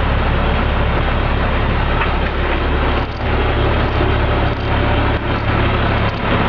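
School bus engine idling steadily with a constant low hum, and a few light knocks from a second or so after the middle onward.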